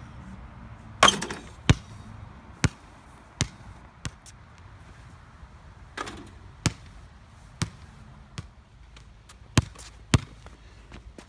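Basketball bouncing on a concrete driveway: about a dozen sharp, irregularly spaced bounces, with a couple of longer, noisier hits among them.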